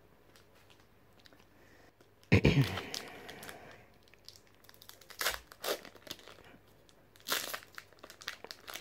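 Foil trading-card booster pack crinkling and tearing as it is ripped open by hand. It starts after about two quiet seconds and goes on in several short bursts.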